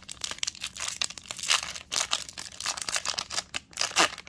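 Foil trading-card booster-pack wrapper crinkling and rustling in irregular bursts as it is handled and torn open. The louder crackles come about a second and a half in and near the end.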